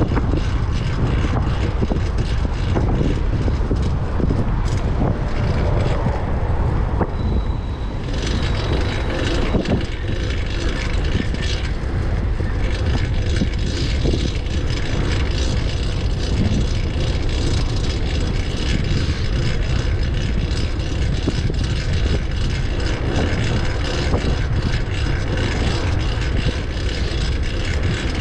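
Wind buffeting the microphone of a fixed-gear bicycle rider riding at speed, with road and traffic noise around it.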